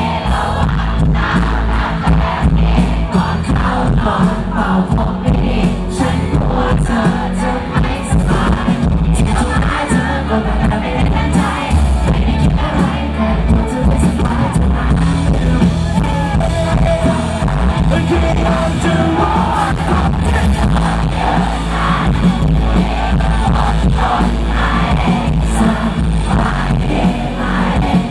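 Live pop-rock band playing loud over a concert PA, with a male lead vocalist singing into a microphone.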